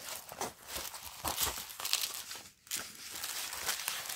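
Clear plastic and cellophane packaging crinkling as it is handled, in irregular crackles with a short pause about two and a half seconds in.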